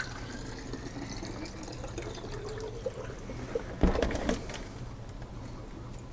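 Distilled-water coolant being poured into a PC water-cooling reservoir. The filling sound rises gently in pitch, and there is a brief louder noise about four seconds in.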